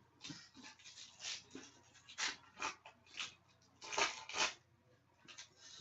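Trading-card pack and cards being handled: a series of short, irregular crinkles and rustles of wrapper and card stock.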